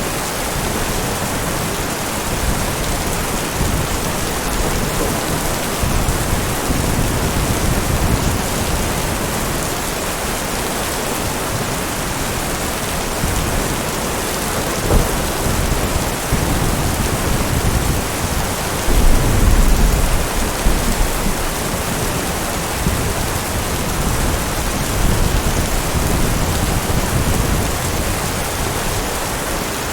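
Heavy rain falling steadily, with low thunder rumbling on and off underneath; the loudest roll of thunder comes about two thirds of the way through.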